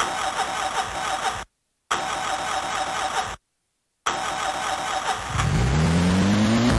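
Car engine being cranked by its starter, in three stretches split by two short breaks of silence; about five seconds in it catches and revs up with a rising pitch.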